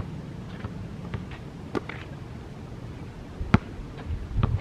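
A basketball bouncing on an outdoor asphalt court: a few sharp, irregularly spaced bounces, the loudest about three and a half seconds in, over a low steady rumble.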